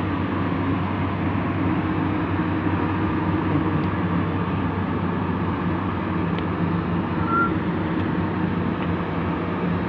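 Heavy diesel engine running steadily at work, with a brief high tone about seven seconds in.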